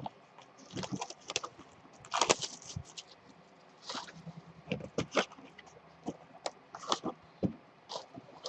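Irregular rustles, scrapes and light taps of a sealed Topps Finest card box being opened and its packs handled.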